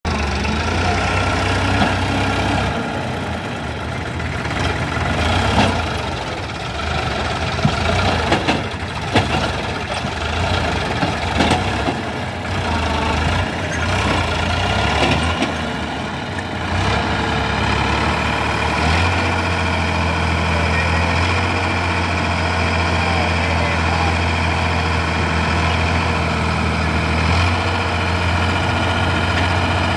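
Sonalika DI 750 tractor's diesel engine running while it drags a loaded tipping trolley over rough sandy ground, with scattered knocks and rattles. From about two-thirds of the way in, the engine holds a steady low drone while the hydraulic tipper raises the trolley to unload the soil.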